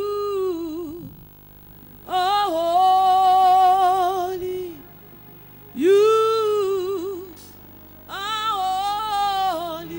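A single voice sings a slow worship song with no clear accompaniment. There are four long held phrases with vibrato, each one to two seconds long, separated by short pauses.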